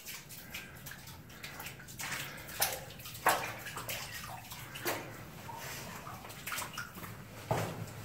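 Footsteps splashing and sloshing through shallow water on a mine tunnel floor, in uneven steps with one sharper splash about three seconds in.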